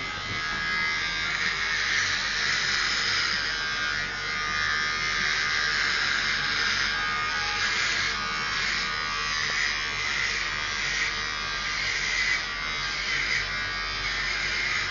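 Electric hair clippers buzzing steadily while cutting hair, the tone shifting slightly as the blades move through the hair.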